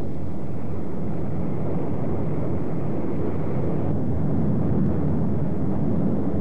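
Steady low roar of lava fountains along an erupting rift-zone fissure, with no distinct beats or tones, swelling slightly in the second half.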